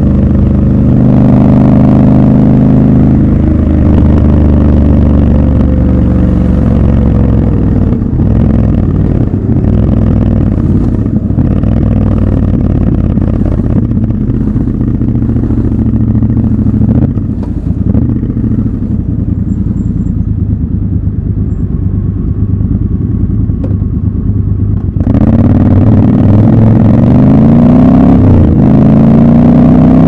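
Triumph Scrambler 1200 XC's 1200 cc parallel-twin engine, running under way at first, then easing off and ticking over at low revs for a long stretch in slow traffic. About five seconds before the end it suddenly gets loud and revs up, its pitch climbing repeatedly as the bike pulls away through the gears.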